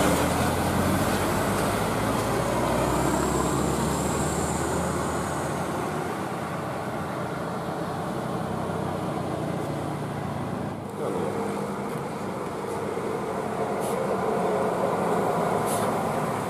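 Bus engine running with steady road and traffic noise; the low engine hum is strongest in the first few seconds.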